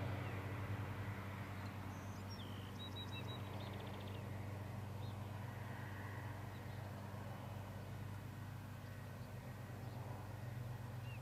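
Distant drone of a Cessna 185's engine and propeller, steady and fading as the plane flies away. A bird chirps briefly about three seconds in.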